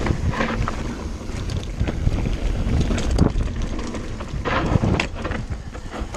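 Wind buffeting the camera microphone at speed, over the rumble of mountain-bike tyres on a dirt trail, with the bike rattling and clattering over bumps several times.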